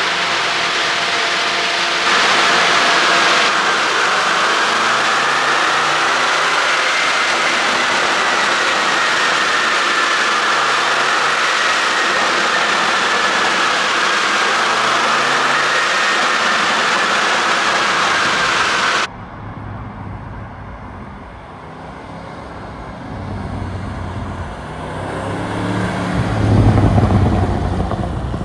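2020 Porsche Cayenne Turbo's twin-turbo V8 on the move: a loud, steady rush of noise with a whine drifting up and down in pitch. About two-thirds of the way in it cuts off sharply to quieter, lower engine running, which swells in a rev near the end.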